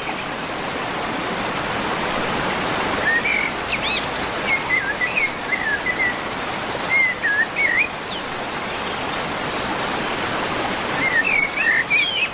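Steady rush of a monsoon waterfall, with a bird singing short warbling phrases over it three times: a few seconds in, around the middle, and near the end.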